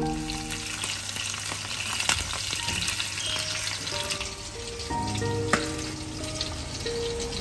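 Salmon steaks sizzling in oil in a frying pan, with a couple of sharp clicks; soft music notes sound over it.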